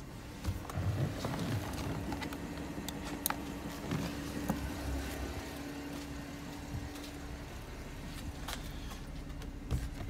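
Footsteps and small handling knocks and clicks as a person moves around a car and to its trunk. Under them is a faint steady hum that stops about seven and a half seconds in.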